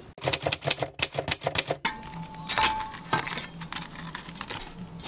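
Pop-up toaster being loaded with bread: a fast run of sharp clicks lasting about a second and a half, then a few lighter knocks as a slice of bread is slid into the slot.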